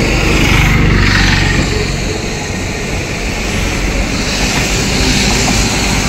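Loud, steady rushing roar of floodwater: a dense, unbroken noise heaviest in the low end, with a faint low hum underneath.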